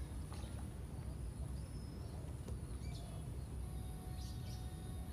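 Outdoor pond-side ambience: a steady low rumble of wind on the microphone, a thin steady high-pitched whine, and scattered short bird chirps.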